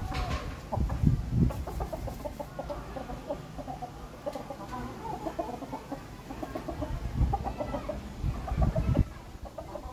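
A flock of chickens clucking, with many short calls running on throughout. Low rumbling bumps about a second in and again near the end are louder than the clucks.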